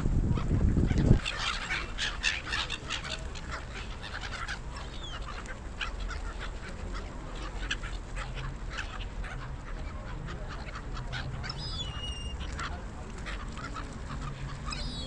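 A flock of gulls calling, many short overlapping cries. A loud low rumble in the first second stops abruptly.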